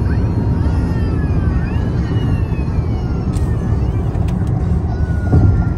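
Steady road and wind noise inside a Toyota Corolla's cabin at highway speed, about 76 mph, with a brief low thump about five seconds in.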